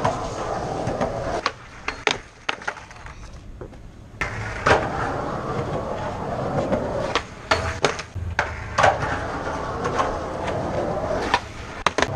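Skateboard wheels rolling on concrete, with sharp clacks of the board popping and slapping the ground several times. The rolling fades about two seconds in and picks up again about four seconds in.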